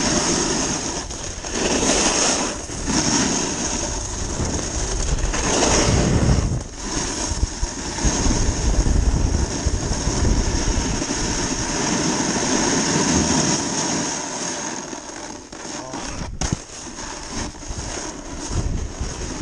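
Wind rushing over a worn action camera's microphone as a snowboarder rides down a groomed slope, mixed with the hiss of the board sliding over the snow. The rush swells and eases with speed and settles somewhat after about fourteen seconds, with a few sharp knocks near the end.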